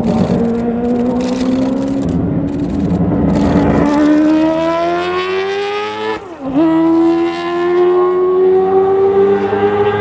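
Mazda 787-series Group C race car's four-rotor rotary engine accelerating hard, its pitch climbing steadily. It dips sharply at a quick gear change about six seconds in, then climbs again.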